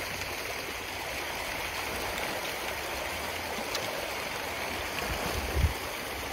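Steady splashing and churning of a shoal of farmed pond fish thrashing at the surface in a feeding frenzy, with a short dull bump about five and a half seconds in.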